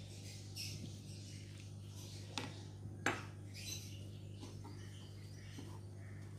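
Hands squeezing and mixing moist bread crumbs on a plate: soft rustling and crumbling, with two sharp clinks about two and a half and three seconds in. A steady low hum runs underneath.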